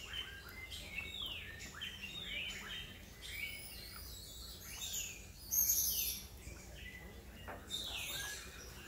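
Several birds calling and singing in tropical forest: many short whistled notes that sweep down and up in pitch, with a louder, harsher high call a little past halfway.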